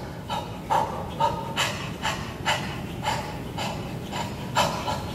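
Violin bowed in short, scratchy strokes, about two a second, giving a rough sawing sound rather than clean notes.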